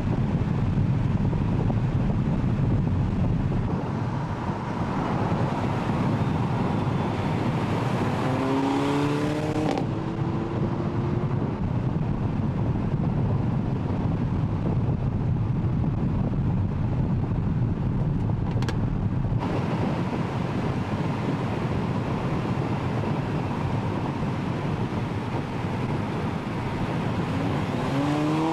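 Mercedes-AMG CLA 45 Shooting Brake's turbocharged four-cylinder engine driving at speed under steady road and wind noise. The engine note rises in pitch as it accelerates, about eight seconds in and again near the end.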